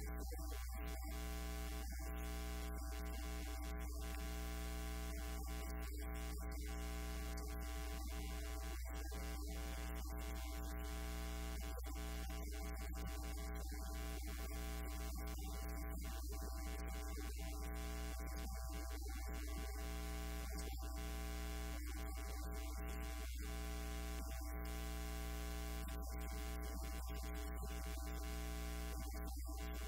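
Steady electrical mains hum and buzz with many overtones, running at an even level under a hiss: a fault in the recording's audio feed.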